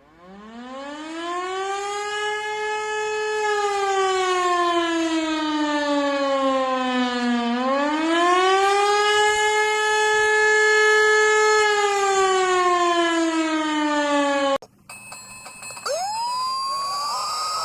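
Civil defence warning siren winding up from a low pitch, then wailing with a slow fall and rise in pitch, falling again before it cuts off suddenly. A different alert sound with a quick rising whistle takes over near the end.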